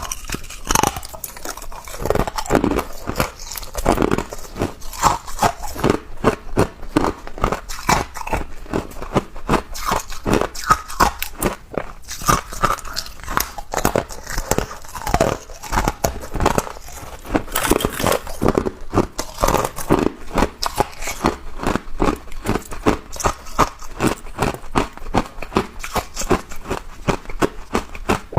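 Close-up crunching of ice being bitten and chewed: a dense, irregular run of sharp crackling crunches.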